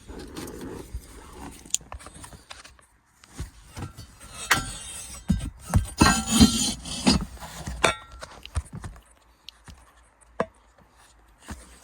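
Hands working with adhesive tape pieces, with rustling, rubbing and scattered clicks of handling. The noise is busiest in the middle, then mostly quiet, with one sharp click near the end.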